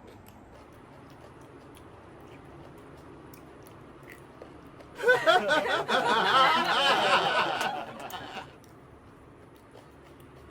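A person quietly chewing spicy chillies, with faint clicks. About halfway through comes a loud wavering voice sound lasting some three seconds.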